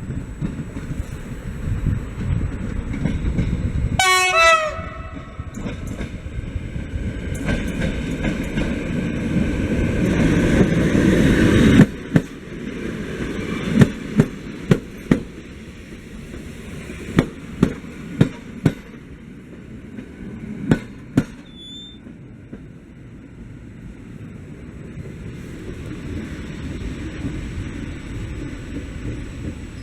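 Regional passenger train sounding its horn in a short blast about four seconds in, then passing with a rumble that builds and drops off sharply. Its wheels strike rail joints in a string of sharp clacks, mostly in pairs, before the noise settles into a steadier running sound.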